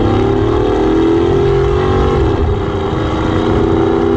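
A vehicle engine held at high revs: its pitch climbs slowly over the first two seconds, then holds steady, over a rough low rumble.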